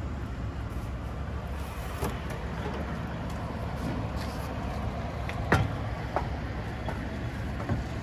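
Footsteps and a few sharp knocks, the loudest about halfway through, as a person walks up to and climbs the entry steps of a travel trailer, over a steady low outdoor rumble.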